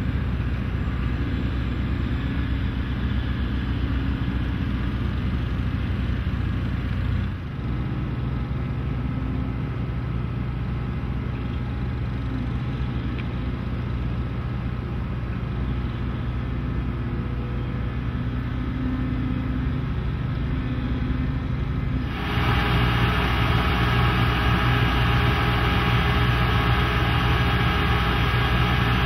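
Steady low drone of a diesel engine running, with its tone and loudness changing abruptly twice, about seven seconds in and about twenty-two seconds in.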